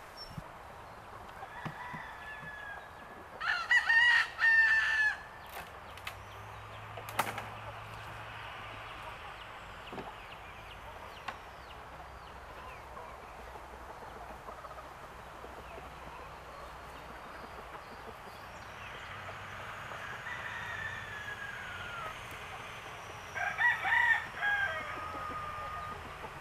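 A rooster crowing twice, once a few seconds in and again near the end, each crow lasting about a second and a half. A few short knocks come in between.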